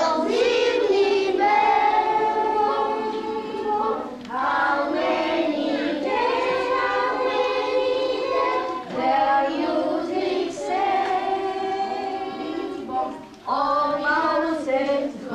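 A class of young children singing a song together, in phrases with short breaks between lines.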